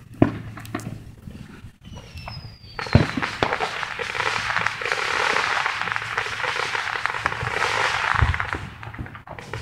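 Fireworks: a whistle falling in pitch, a sharp bang about three seconds in, then several seconds of dense crackling with another thump near the end.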